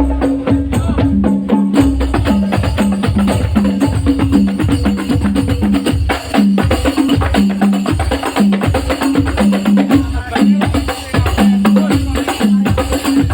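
Percussion-led music: a steady beat of deep drum strokes with tambourine-like jingles and sharp taps, over a repeating low two-note line.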